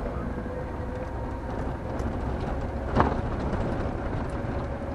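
Car driving on a narrow road, heard from inside the cabin: steady engine and tyre noise with a thin steady whine. A single sharp knock sounds about three seconds in.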